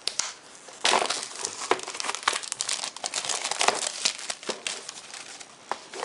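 Headphone retail packaging being opened and handled: irregular crinkling and rustling with short clicks and snaps, loudest about a second in.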